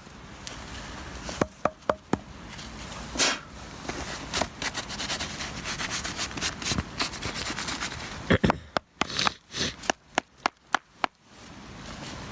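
Axe work on a piece of hardwood firewood: scattered sharp knocks and scraping of wood, then a quick run of strikes, about three a second, near the end.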